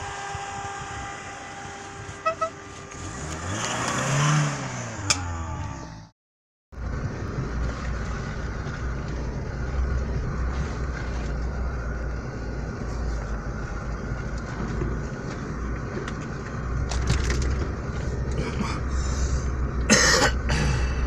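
Lada Niva's engine revving as it drives through snow, its pitch rising and falling about four seconds in. After a cut, a steady low drone of an off-road vehicle's engine and drivetrain heard from inside the cab on a rough snowy track, with a few knocks and bumps near the end.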